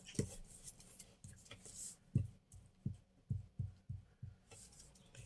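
Paper being handled on a tabletop: faint rustling and a run of soft low taps and pats, most of them between about two and four and a half seconds in.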